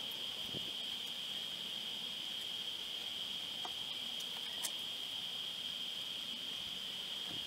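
Insects trilling, one steady high-pitched tone, with a single light click a little past halfway.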